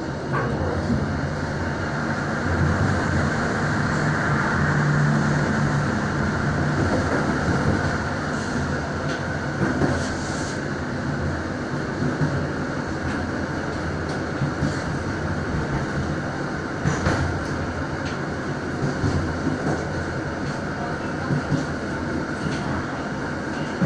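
Passenger train running on rails, heard from the rear car: a steady rumble of wheels on track with occasional sharp clicks from rail joints.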